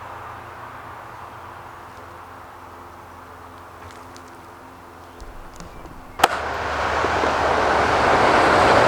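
An engine running at a low idle with a steady hum. About six seconds in there is a sharp click, then a much louder, even rushing noise with a low hum underneath, which builds over about a second and holds.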